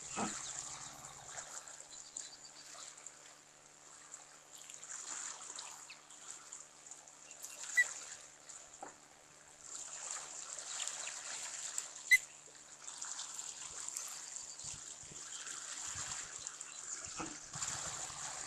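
Steady trickling of running water. Two sharp clicks stand out about 8 and 12 seconds in.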